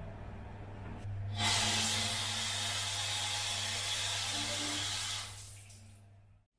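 A loud, steady hiss of spray starts about a second and a half in, holds for about four seconds and then fades away, over a steady low hum.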